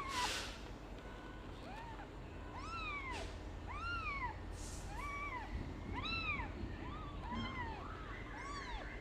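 Newborn kittens mewing: a string of short, high-pitched calls, each rising and then falling, coming about once a second or faster with several voices overlapping. A brief rustle sounds at the start and again about halfway through.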